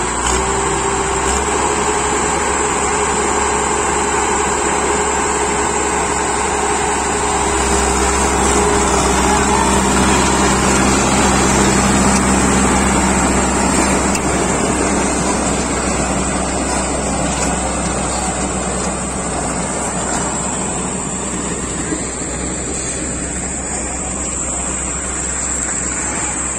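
Farmtrac 6055 tractor's diesel engine running hard under load, a steady loud drone that swells about a third of the way in and eases off somewhat in the second half.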